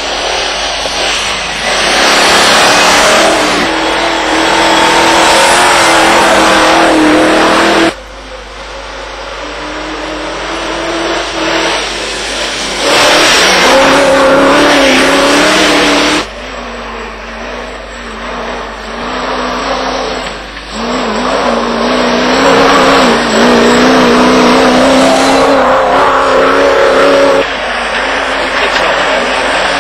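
Land Rover engines revving hard under load while racing off-road, the engine note climbing and dropping repeatedly. The sound breaks off abruptly twice and picks up at a different level.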